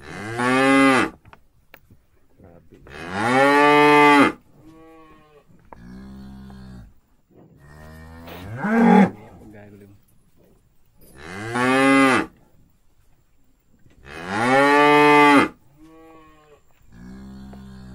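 Several cows mooing in turn: five loud, long moos, one of them rising in pitch near the middle, with quieter lower moos in between. The tame cattle are calling while being offered salt water from a bottle.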